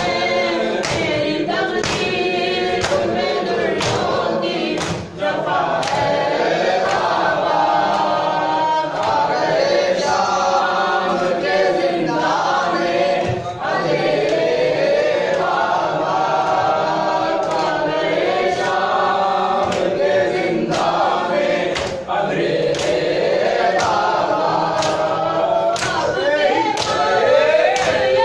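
A group of mourners chanting a noha in unison, with rhythmic matam chest-beating slaps keeping the beat roughly once a second.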